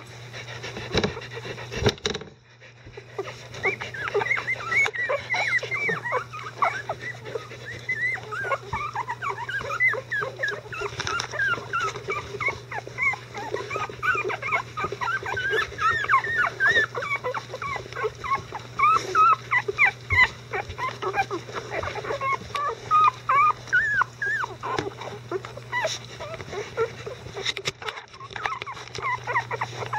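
Eleven-day-old Icelandic Sheepdog puppies whimpering and squeaking: many short, high, wavering cries overlapping in quick succession, starting a few seconds in.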